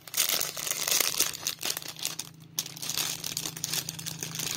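Plastic jewellery packet crinkling and rustling as hands open it, in two stretches with a short pause a little past the middle, over a faint steady low hum.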